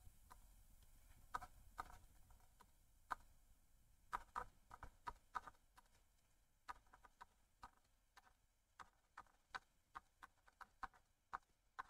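Faint, irregular clicks and taps of a stylus tip on a tablet surface during handwriting, some coming in quick little clusters.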